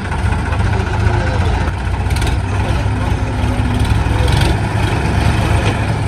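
Swaraj 963 FE tractor's three-cylinder diesel engine running steadily as it drives the lowered front loader bucket into ploughed soil, with a couple of faint knocks.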